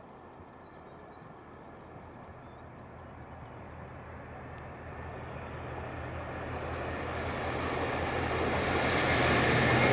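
Diesel train approaching, its engine's steady low drone and the rush of its running growing louder.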